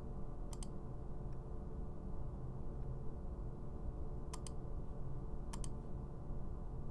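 Computer mouse clicking three times, each click a quick press-and-release pair: once about half a second in, then twice a second apart later on. A steady low hum runs underneath.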